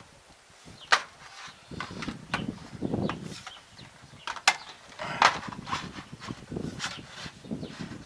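Sharp clicks and knocks at irregular intervals, with scraping and rustling between them, from sheet-metal door reveal trim and spacers being handled and fitted against the door frame.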